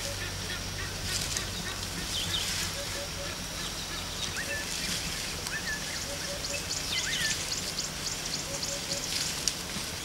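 Wild birds calling in the bush: scattered short high chirps, a low three-note call repeated about every three seconds, and a quick run of high ticks midway, over a steady low hum.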